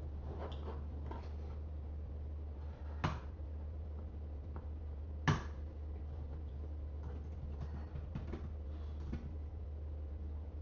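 Computer keyboard and mouse clicks: two sharper clicks about two seconds apart and scattered light taps, over a steady low hum.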